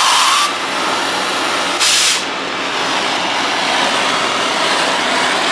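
Oxy-fuel cutting torch burning with a steady hiss, which briefly grows sharper and brighter twice, at the start and about two seconds in, for about half a second each.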